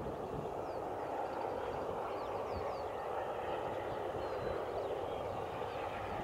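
Bulleid Battle of Britain class steam locomotive 34067 Tangmere, heard from far off, working hard, its exhaust a steady distant rush. Wind buffets the microphone and small birds chirp faintly.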